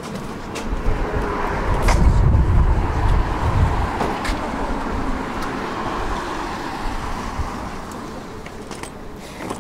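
Tram running on its rails: a steady low rumble that swells a couple of seconds in, with a faint steady whine above it and a few sharp clicks.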